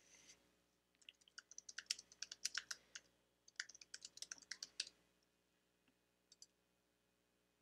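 Faint typing on a computer keyboard: two quick runs of key clicks over the first five seconds, then a couple of lone clicks a little later.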